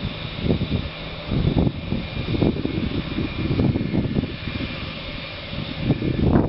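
Jet airliner taxiing, its engines giving a steady high whine, under irregular gusts of low rumble from wind on the microphone.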